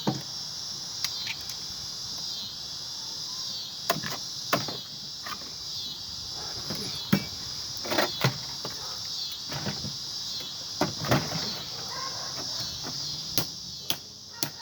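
Scattered sharp clicks and knocks of pliers and metal parts as an ice maker is pried apart for scrap, over a steady high chorus of crickets.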